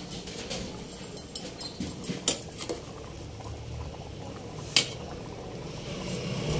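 Pot of pork and vegetable broth boiling, with a utensil knocking against the metal pot about five times as the soup is stirred. The sharpest knocks come a little after two seconds and just before five seconds in.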